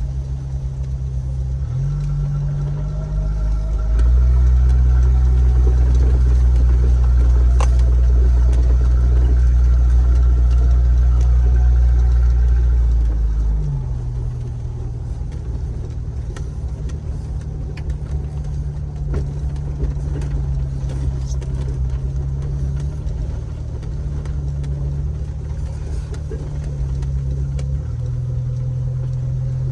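Jeep engine running as it drives, a steady low drone that steps in pitch now and then. It is louder from about four seconds in until about thirteen seconds, then eases back.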